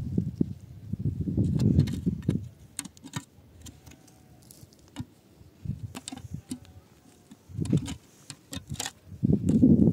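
Dry, stony soil being scraped and scooped out of a hole by hand, in several scraping bursts, with many small stones clicking and clinking against each other.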